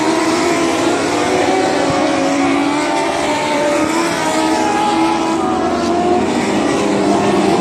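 A pack of dwarf race cars racing, their high-revving motorcycle engines running together in a loud, steady drone. Several engine pitches overlap, rising and falling as the cars accelerate and lift around the track.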